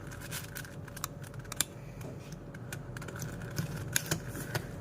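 Plastic 4x4 Rubik's cube being turned by hand: irregular clicks and clacks as its layers snap round, with a sharper click about a second and a half in and another near the end.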